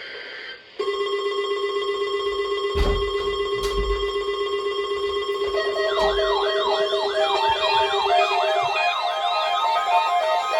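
NOAA Weather Radio's steady 1050 Hz warning alarm tone starts about a second in. About five seconds later a weather alert radio's own alarm, triggered by the tone, joins it: a rapidly repeating wailing siren with alternating beeps. A couple of knocks are heard a few seconds in.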